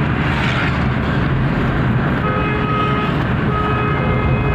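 Steady engine and road noise heard from inside a moving vehicle's cab, with a vehicle horn sounding twice in the second half, each blast a steady tone about a second long.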